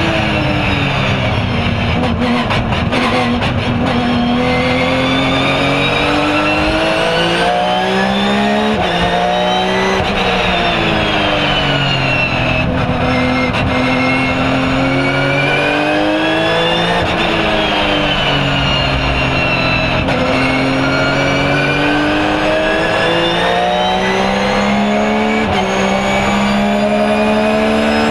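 Porsche 997 GT3 R race car's flat-six engine heard from inside the cockpit at racing speed. The engine note climbs through the gears with sudden drops at each upshift, then slides down several times as the car slows for corners.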